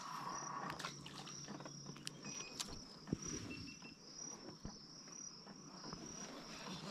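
Insects chirring in a high, steady, pulsing trill, with a few scattered light clicks and taps.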